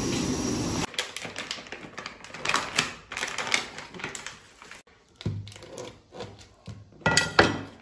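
Cleaver tapping and chopping on a wooden cutting board in a quick, irregular series of knocks, cutting up a block of hotpot chili base. The first second is a steady hiss from the steaming wok on the gas stove, which cuts off suddenly.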